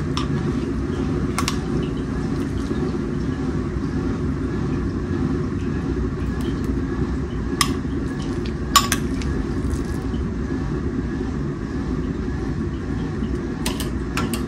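Metal tongs clinking a few times against a pellet grill's grate and a glass dish, sharpest about nine seconds in and again near the end, over a steady low rumble.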